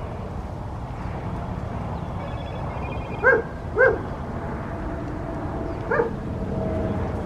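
A dog barking: three short barks, two close together about three seconds in and one more near the end, over a steady low background rumble.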